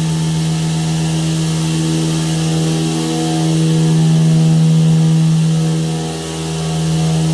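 Loud, steady hum of machinery running in a dairy farm's refrigerated milk room, one low droning note with overtones that swells slightly about four seconds in and eases near the end.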